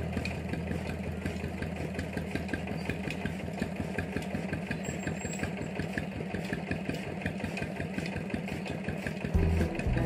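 An engine running steadily at idle, with a rapid, even pulse.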